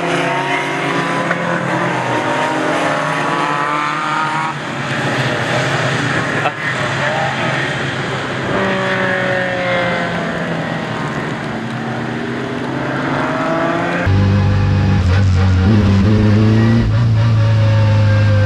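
Modified race cars running hard on a wet circuit, engines revving up and falling away as they pass. About fourteen seconds in the sound changes abruptly to a louder, steady, deep engine drone heard from inside a race car's cabin.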